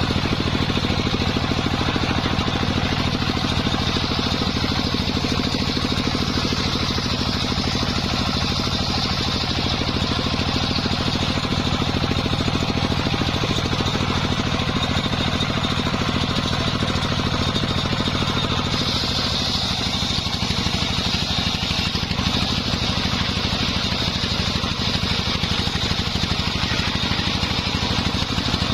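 Engine-driven circular sawmill running steadily, with a high whine over the low engine note. About two-thirds of the way through, the engine note shifts and the whine grows brighter.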